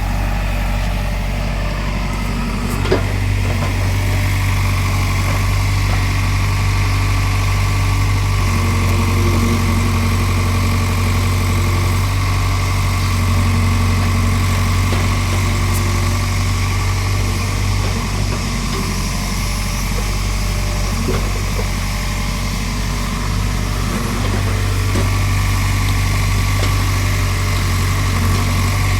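Excavator's diesel engine running steadily, with a single short knock about three seconds in.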